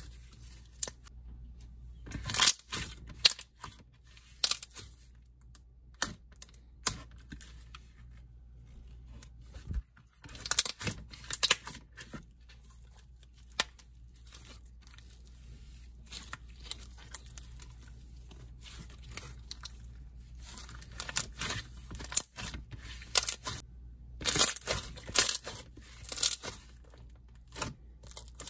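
Hands squishing, poking and stretching a jelly slime: irregular clusters of sticky clicks and crackles, with quieter stretches between.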